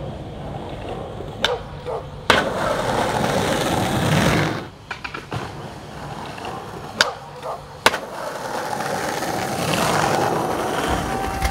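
Skateboard wheels rolling on concrete in two long runs, with several sharp clacks of the board hitting the ground: tail pops and landings.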